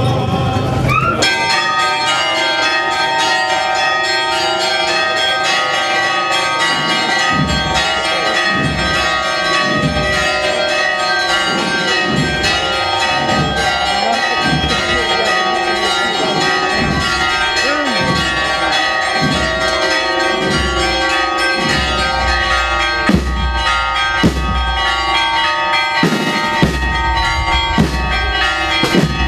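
Church bells ringing continuously, many bell tones sounding together and overlapping without a break.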